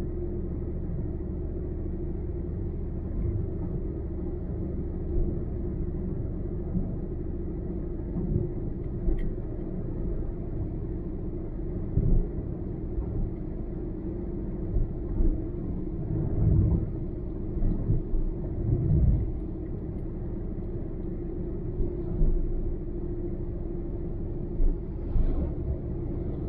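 Car travelling along a highway at speed: steady low road and engine rumble with a constant hum, broken by occasional short low thumps. Near the end comes a brief rush of noise as an oncoming truck passes.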